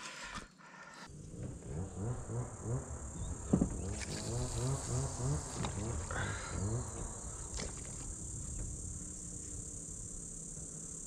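Insects droning steadily at a high pitch, with a low, evenly repeated pulsing for a few seconds in the middle and one sharp knock about three and a half seconds in.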